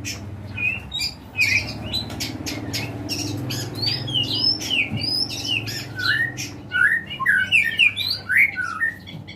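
Songbirds calling in a quick run of short harsh notes and chirps, which turn into more frequent sliding chirps in the second half.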